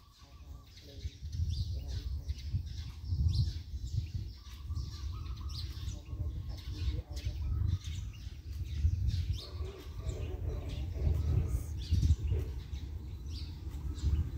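Small birds chirping over a low, uneven rumble that swells and falls.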